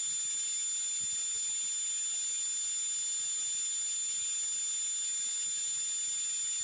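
A steady high-pitched electronic whine, held without a break, over a constant hiss.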